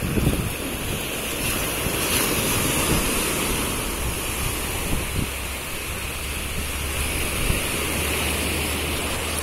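Sea surf breaking and washing up the sand at the water's edge, a steady rushing wash.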